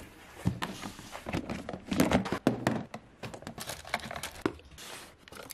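Packaging supplies being handled: cardboard mailers shifted about and a hand rummaging through a plastic organiser box, giving a string of knocks, taps and rustles, loudest about two seconds in.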